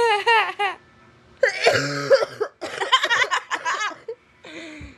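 Young people's voices making short bursts of vocal noise, coughing and laughter, with no clear words, broken by brief quiet gaps.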